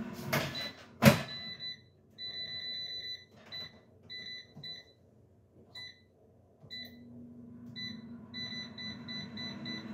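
A sharp knock about a second in, then a run of short, high electronic beeps, all at the same pitch, coming in an uneven pattern. A low hum comes in during the second half.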